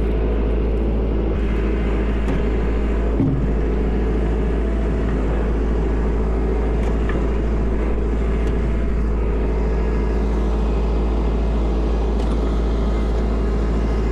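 Kubota L4701 tractor's diesel engine running steadily under load while pushing snow. There is a single thump about three seconds in.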